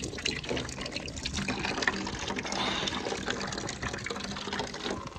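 Well water running from a tap, splashing steadily as it fills a container.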